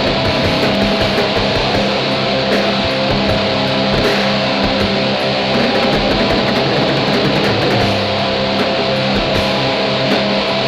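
Raw lo-fi black metal: a dense, unbroken wall of distorted electric guitar over steady drum hits.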